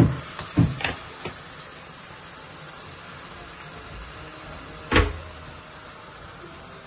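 Metal colander and ladle knocking against an aluminium pot as raw chicken goes into hot masala: several knocks in the first second, then a low steady sizzle, and one sharp clank about five seconds in.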